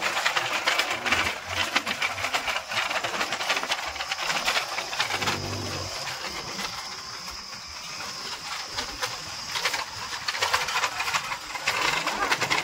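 Bullock cart rattling and clattering as two oxen pull it at a trot along a rough dirt track: a dense run of rapid knocks and jolts from the wheels, frame and hooves, over a steady hiss.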